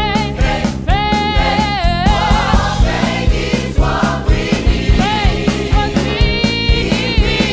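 Gospel choir singing a held, wavering melody in several voices over a steady beat with bass accompaniment.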